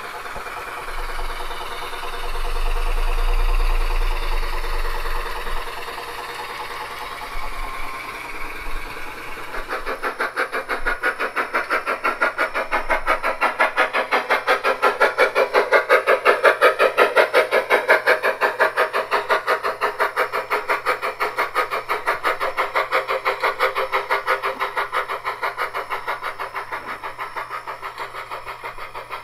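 Steam locomotive sounds from a SoundTraxx Blunami steam sound decoder playing through the tender speaker of a G-scale Aristocraft C-16 model. About ten seconds of steady hissing give way to rapid, even chuffing as the locomotive gets under way. The chuffing swells to its loudest midway, then fades toward the end.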